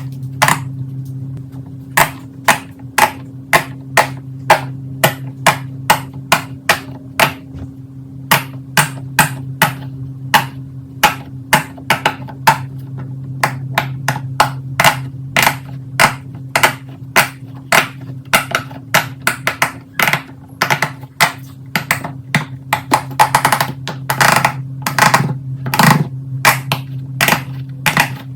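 Silicone pop-it fidget toy bubbles being pressed, a run of sharp pops about two to three a second, over a steady low hum.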